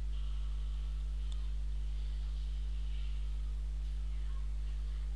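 Steady low electrical hum with a faint hiss, and a single faint click just over a second in.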